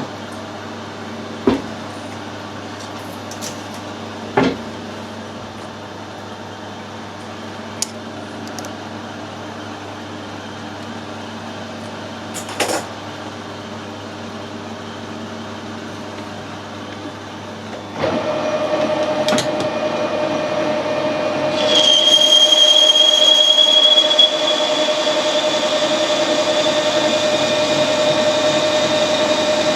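Metal lathe running while turning a high-tensile steel repair stud, a steady machine drone with a few light clicks. About eighteen seconds in it gets louder with a new steady hum, and a few seconds later a high, slightly rising whine joins.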